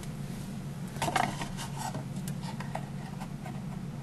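Paper box being handled on a table: a few faint light ticks and scrapes of paper about a second in, then scattered small ticks, over a steady low hum.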